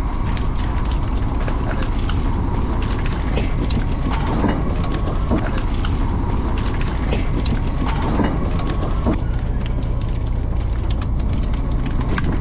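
A fishing boat's inboard engine running steadily, with many scattered clicks and knocks from fish and gear being handled on the deck.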